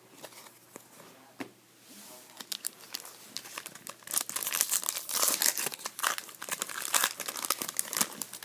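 Plastic wrapper of an Upper Deck SP Authentic hockey card pack crinkling and being torn open. A few scattered crackles at first, then a dense, loud burst of crinkling in the second half.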